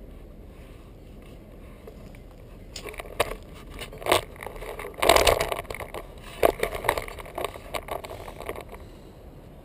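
Knocks, clicks and scraping of a GoPro camera being handled and turned on its mount, starting about three seconds in and loudest around five seconds, over a steady low hiss. No kart engine is running.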